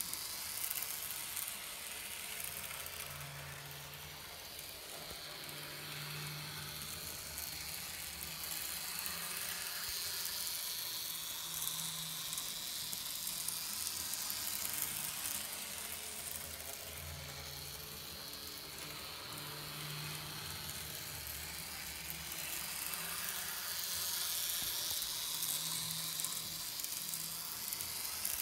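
Small electric model train running round a tabletop track: a steady rattling hiss of wheels on the rails with a low motor hum that comes and goes, slowly getting louder and softer as the train circles the loop.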